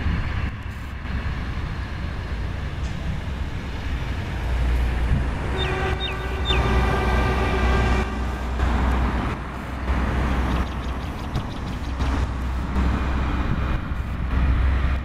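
NZR Standard railcar RM31's engine running as the railcar moves off along the track. About a third of the way in, its horn sounds one steady note for about two and a half seconds.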